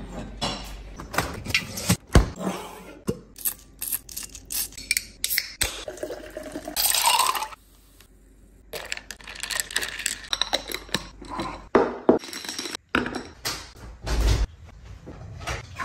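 Kitchen sounds of glasses and dishes being handled: a series of sharp clinks and knocks, with a drink poured over ice into a glass for about a second near the middle. A dull thump comes near the end.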